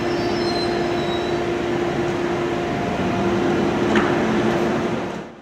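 Station platform ambience: a steady hum with one held low tone from electric trains standing at the platform. There is a short click about four seconds in, and the sound fades out near the end.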